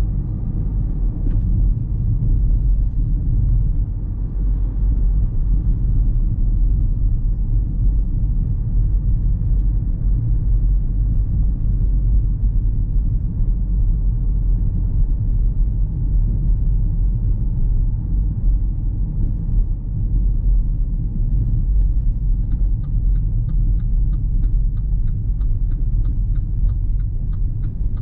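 Steady low rumble of a car driving, with road and engine noise. About three-quarters of the way through, a fast, even ticking starts, about two to three ticks a second, and runs on over the rumble.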